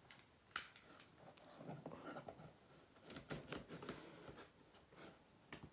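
Faint scrapes, rustles and clicks of a cardboard box being handled and opened, with a sharper click about half a second in and another near the end.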